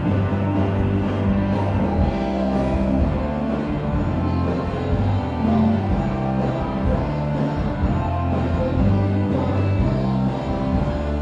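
Background music with guitar, steady throughout.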